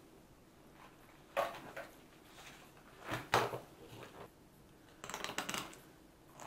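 Knife and hands working a whole carp on newspaper: three short bursts of scraping, rustling and crackling as the fish is turned and cut, the last one longer, about five seconds in.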